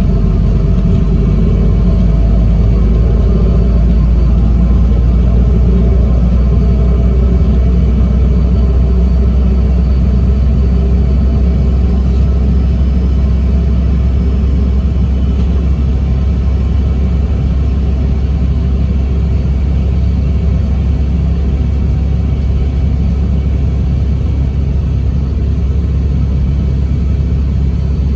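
Boeing 717's rear-mounted Rolls-Royce BR715 jet engines running steadily, heard inside the cabin as a loud, even low rumble with a faint hum above it.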